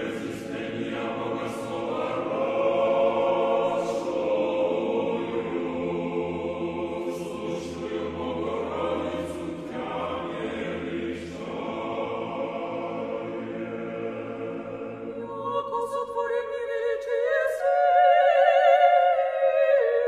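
Choir singing unaccompanied in long held chords. About fifteen seconds in, a higher voice with strong vibrato rises above it.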